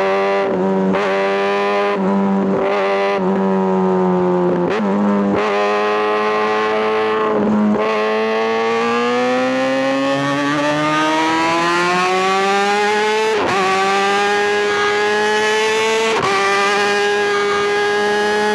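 Kawasaki ZX-6R inline-four sports-bike engine at high revs. The pitch holds fairly steady, is cut by brief breaks every second or few, and climbs slowly through the middle, like gear changes and acceleration under way.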